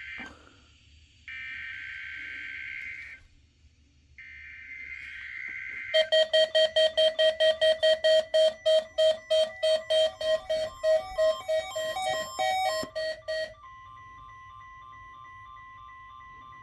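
NOAA Weather Radio alert: three bursts of buzzy digital SAME header data, then a receiver's alarm beeping loudly about three times a second for some seven seconds over the National Weather Service warning alarm tone. The alarm tone then carries on alone as one steady, quieter tone. It is a weekly test of the warning alarm feature.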